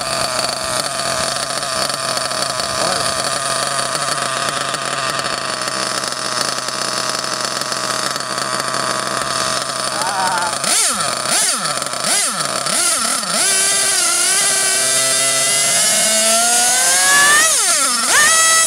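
A .28 nitro RC buggy engine, running out of the chassis during a tune-up, holds a steady idle for about ten seconds. It is then revved by hand at the carburetor in several quick rises and falls, and climbs to a high-pitched whine near the end.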